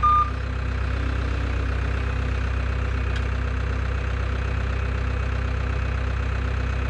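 Caterpillar skid steer loader's diesel engine idling steadily while the machine stands still. A short back-up alarm beep sounds right at the start.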